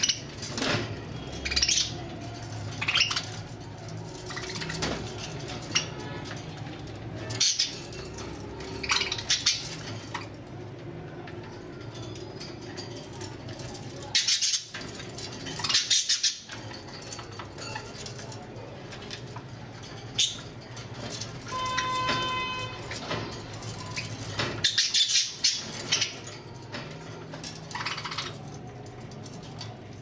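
A group of caged budgerigars chirping and chattering: short, sharp high chirps every second or two, with one longer held, pitched note in the second half.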